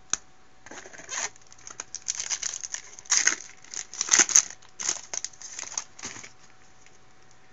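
Foil wrapper of a 2012 Bowman Platinum baseball card pack being crinkled and torn open by hand: a run of irregular crackles lasting several seconds, after a single sharp click at the start.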